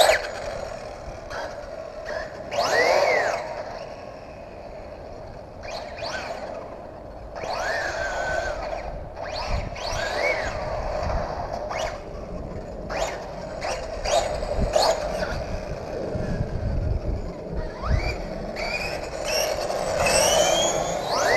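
1/5-scale MCD X5 electric rally RC car with a Lehner 3080/6 brushless motor driving on asphalt: the motor's whine rises and falls in pitch several times as it accelerates and slows, with short tyre scrapes in between.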